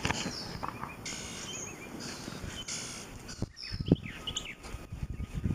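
Songbirds chirping and twittering in short high calls over steady outdoor background noise, with a soft low thump about four seconds in.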